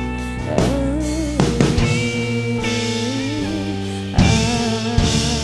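Instrumental band music with no singing: held guitar chords and a few drum hits.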